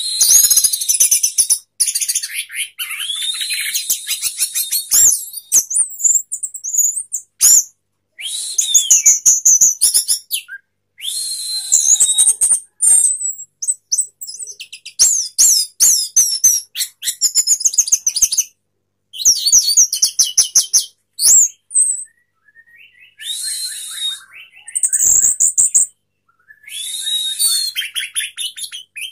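Orange-headed thrush singing a loud, varied song: rapid clicking chatter mixed with whistled and sliding notes, in bursts of a few seconds broken by short pauses.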